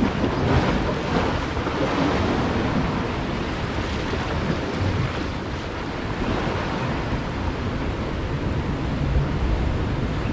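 Sea waves washing against shoreline rocks, with wind buffeting the microphone as a low rumble that rises and falls.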